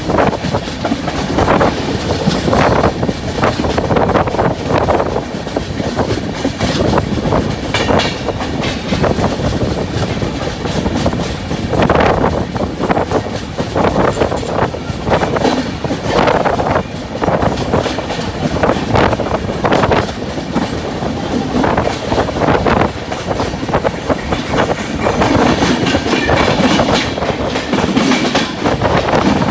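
Sinhagad Express passenger train passing close by, its coaches' wheels clattering over the rail joints in a loud, continuous run of clicks and knocks.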